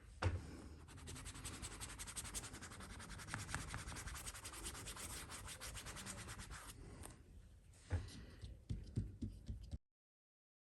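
Fast, continuous rubbing strokes over a leather baseball glove as it is buffed down after conditioning, followed by a few light knocks before the sound cuts off abruptly.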